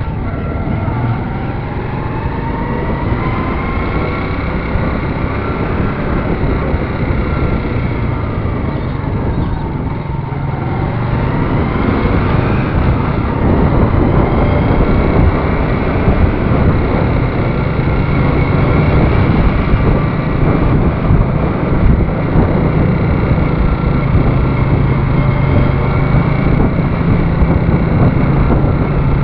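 Motorcycle engine running while riding, with steady wind rush over the microphone. The engine pitch rises and falls early on, and the engine and wind get louder about twelve seconds in as it speeds up.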